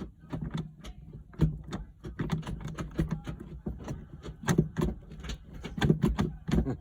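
The short shifter of a 2003 Honda Civic being moved through the gears: a run of irregular clicks and clunks from the shift lever and linkage, over a low hum.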